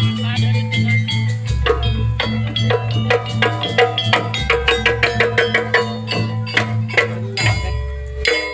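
Loud percussion-led music for a pencak silat dance: quick drum and struck pitched notes over a steady low drone that drops out and returns in blocks of a few seconds.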